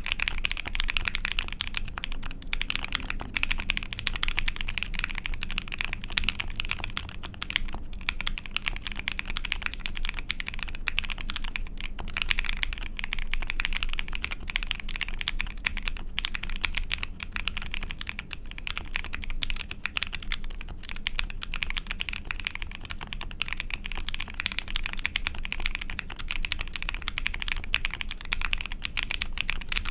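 Continuous typing on an ai03 Vega 65% mechanical keyboard with a POM plate and GMK keycaps, fitted with a mix of about thirty different switches, most of them lubed. It is a dense, unbroken stream of keystroke clacks with no pauses.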